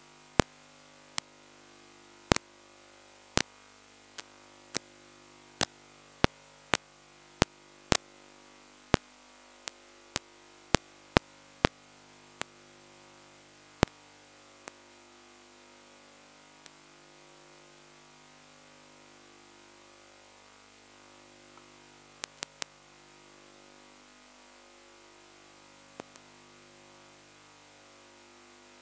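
Steady hiss and low hum of room recording noise, with a run of sharp, very short clicks about once a second for the first fourteen seconds and a few more later.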